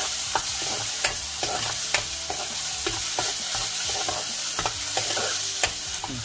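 Metal spoon scraping and clinking against a metal kadai as thick ground onion chutney is stirred through hot tempering oil, with a steady sizzle underneath. The spoon knocks on the pan roughly every half second to a second.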